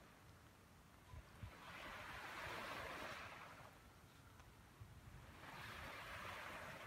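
Faint sound of small waves breaking and washing up a sandy beach, each wash swelling and fading away, twice, about four seconds apart.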